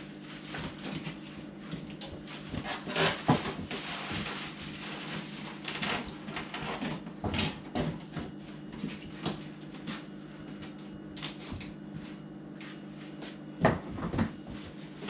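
Juicer parts and packaging being handled: scattered clicks and knocks, with louder knocks about three seconds in and near the end. A steady low hum runs underneath.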